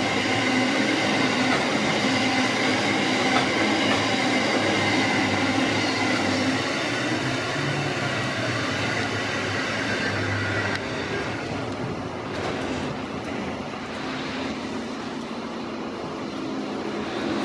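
A freight train's loaded coal hopper wagons rolling past on wet track, with a thin high wheel squeal for the first several seconds. The sound eases off after the last wagon goes by, about eight seconds in, leaving a steadier hiss of rain.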